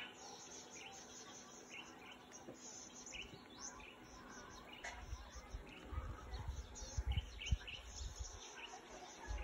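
Insects chirping in a rapid pulsing rhythm, with short bird chirps scattered through. Low rumbling on the microphone comes in from about five seconds in.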